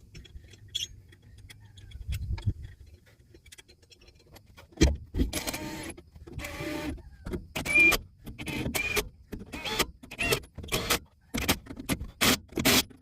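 Cordless impact wrench fired in a string of short bursts, starting about five seconds in and coming quicker near the end, as the lug nuts on a trailer wheel are run down and tightened.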